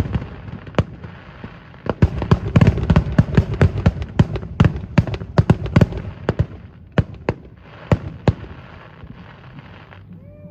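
Aerial fireworks going off: a rapid barrage of sharp bangs and crackle that thins to a few single booms in the second half, then a steady crackling hiss that cuts off near the end.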